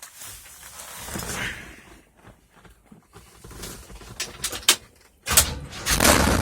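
Clicks and knocks of handling, like a door and controls, then about five seconds in a car engine starts with a sudden burst and settles into a steady low idle.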